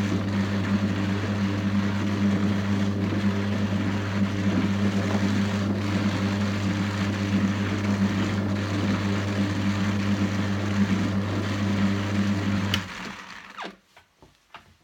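Louët electric drum carder running: its motor and drums give a steady hum with a rushing noise over it. About 13 seconds in it is switched off, and the sound stops and dies away within a second.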